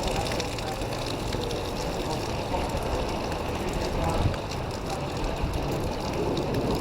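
Street ambience in the rain: a steady hiss of rain and wet road noise with traffic passing, and faint voices in the background.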